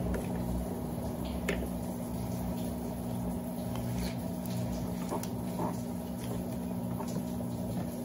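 Electrolux LB12Q top-loading washing machine running with a full tub: a steady motor hum under the swish and slosh of water as the towels swirl, with a few light clicks.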